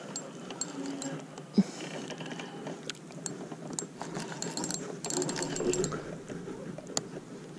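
Fishing reel clicking and working as a large hooked carp is played on the line, with scattered irregular clicks.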